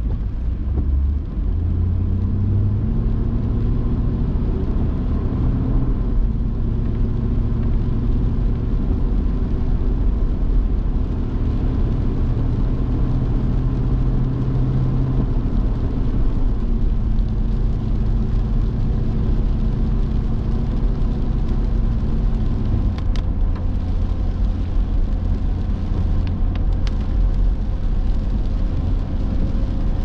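Car engine and tyre noise on a wet road, heard from inside the car. The engine note rises in steps as the car pulls away in the first couple of seconds, holds steady, then drops about 23 seconds in; a few faint clicks come near the end.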